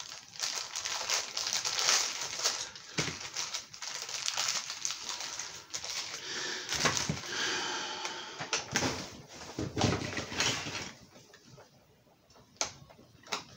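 Hard plastic toy parts and packaging being handled: continuous crinkling and rustling with many small clicks, dying down about eleven seconds in to a few separate sharp clicks.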